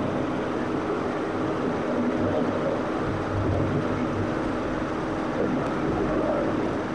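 Steady background hum and hiss, even throughout, with a faint low hum underneath.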